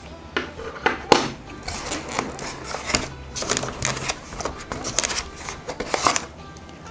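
Hard plastic clipper attachment combs clicking and tapping as they are handled and set down on a tabletop, with hands rustling in a cardboard box. These are irregular light clicks and rustles, the sharpest about a second in.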